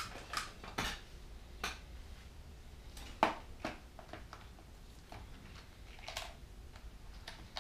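A plastic assortment box of heat-shrink tubing being handled in gloved hands: scattered light clicks and rattles of the plastic case and loose tubes, the sharpest about three seconds in.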